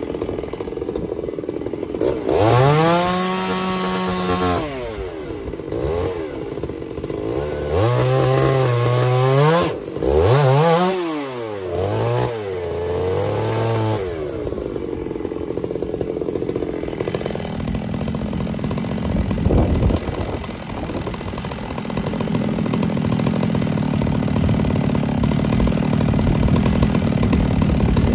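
Two-stroke chainsaw idling, then revved up several times in quick rises and falls of pitch between about two and fourteen seconds in, before settling back to a lower, rougher running note.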